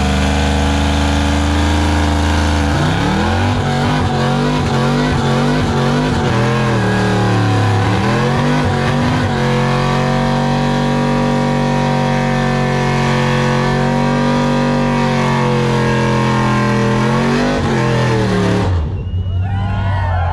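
Pickup truck engine revving hard through a burnout, with its tyres spinning. About three seconds in the revs climb and rise and fall several times, then hold high and steady for several seconds. The sound cuts off sharply about a second and a half before the end.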